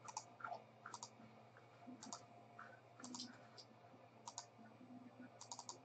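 Faint, scattered clicks of a computer mouse and keyboard, with a quick run of several clicks near the end.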